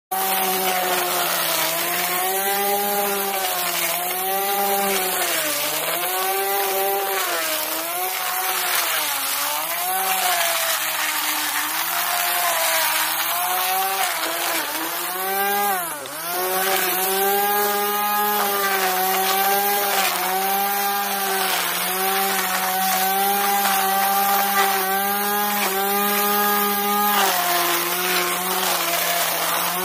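Corded electric string trimmer running while cutting grass and weeds, its motor whine dipping in pitch again and again as the line bogs down in the growth and recovering. About halfway through the pitch drops sharply for a moment before picking back up.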